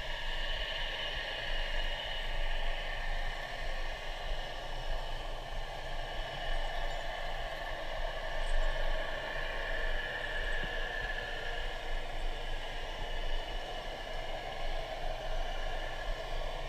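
Underwater ambient noise heard through a GoPro's waterproof housing at depth: a steady hiss with a low drone and faint tones that drift slowly in pitch.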